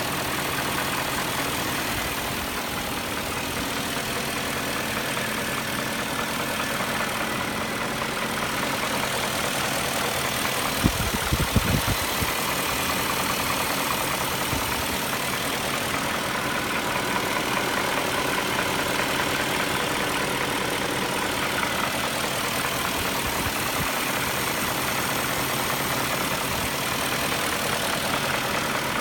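2001 BMW 540i's M62TU 4.4-litre V8 idling steadily with a diesel-like knock and rattle, which the owner puts down partly to VANOS rattle and partly to a clack he cannot identify. A brief cluster of loud low thumps comes about eleven seconds in.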